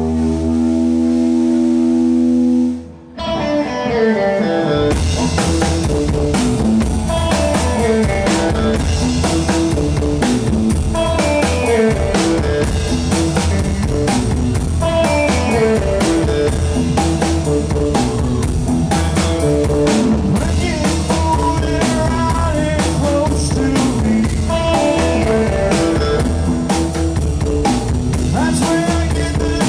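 Rockabilly trio playing live with electric guitar, upright bass and drum kit. A held chord rings for about three seconds, then the band kicks into an instrumental passage with the drums and cymbals coming in fully a couple of seconds later.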